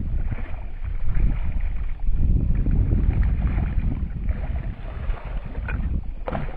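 Wind buffeting the microphone in a low, rough rumble, with water splashing as a hooked mahi-mahi thrashes at the surface alongside the kayak.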